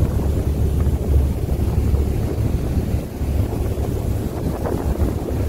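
Heavy wind buffeting the microphone on the open deck of a fast-moving boat: a loud, unsteady low rumble, over the rush of the boat's wake spray.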